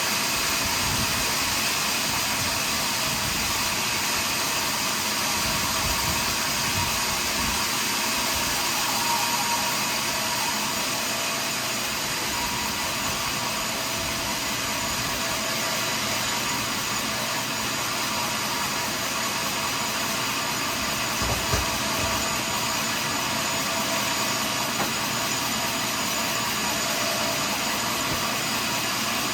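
Sawmill machinery running steadily: an even, continuous mechanical noise with steady tones from the saw and its motor, and a short knock about two-thirds of the way through.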